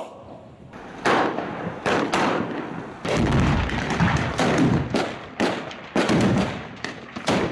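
Gunfire and explosive charges going off in a military live-fire exercise. A string of sharp shots starts about a second in, and heavier, longer blasts follow from about three seconds in.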